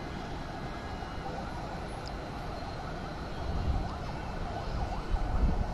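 Steady hum of city traffic heard from a height, with gusts of wind buffeting the microphone about three and a half and five seconds in.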